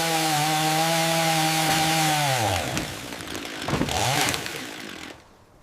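Chainsaw running steadily at speed, then winding down about two seconds in as the throttle is released. A short burst of noise follows, and the sound fades out near the end.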